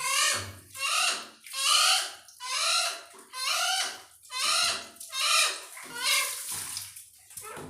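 Hill myna calling over and over, about one loud call a second, each call falling in pitch.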